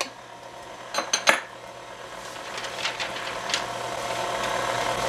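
KitchenAid Classic stand mixer running, its flat beater turning through flour and wet batter: a steady motor hum that grows louder from about two seconds in, after a few sharp clicks about a second in.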